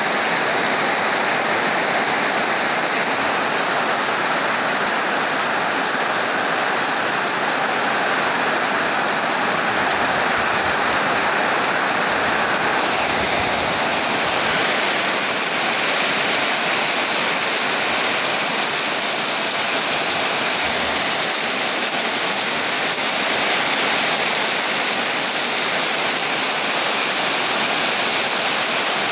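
Heavy rain falling steadily on foliage and ground, a dense, even hiss.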